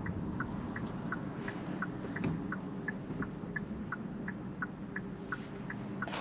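Kia EV6 turn-signal indicator ticking in the cabin, an even tick-tock about three ticks a second, over a low rumble of road noise as the car rolls slowly.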